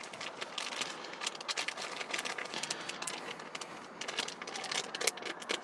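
Thin plastic zip-top bag crinkling and crackling as hands slip a wrapped sample bottle into it and press the top shut: a dense run of small, irregular crackles.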